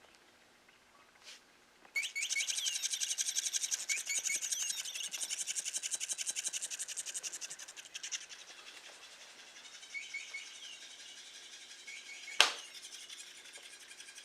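Bird chirps start suddenly about two seconds in, over a fast, even high trill that is loudest for several seconds and then carries on more faintly. A single sharp click comes near the end.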